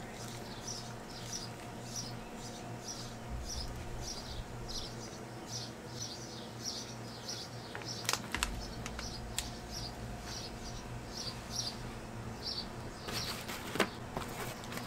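A small bird chirping over and over in short high notes, about one and a half chirps a second. A few sharp plastic crackles come about eight seconds in as a water bottle is drunk from, and there is a brief rustle near the end.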